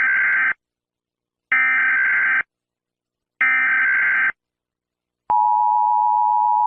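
Emergency Alert System alert opening: three short bursts of SAME header data tones, each a buzzing warble of about a second, followed about five seconds in by the steady two-tone attention signal.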